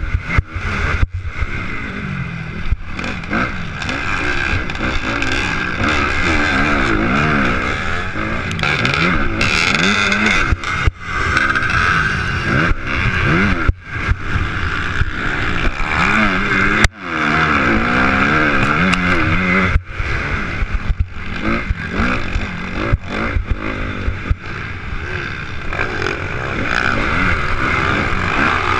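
Motocross bike engine heard from a helmet-mounted camera, revving up and down over and over as the rider races, with several brief sharp drops as the throttle closes; other bikes can be heard around it.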